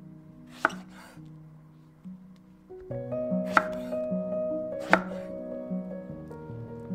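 Chef's knife chopping through eggplant onto a wooden cutting board: a few sharp single chops, a second or more apart, over background music.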